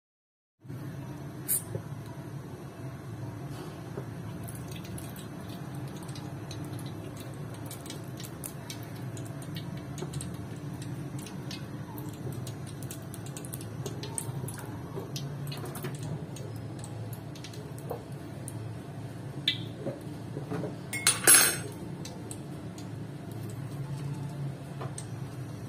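Cooking oil warming in an aluminium wok: a steady low hum with scattered faint ticks and clicks. About 21 seconds in, a short, louder clatter of a metal spoon or utensil against the pan.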